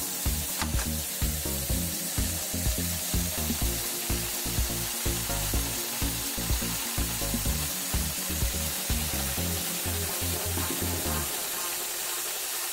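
Background music with a steady beat over the steady running noise of a Global WF 9995 AE single-needle walking-foot binding machine sewing tape onto a fabric edge while its front knife trims. A sharp click sounds about half a second in.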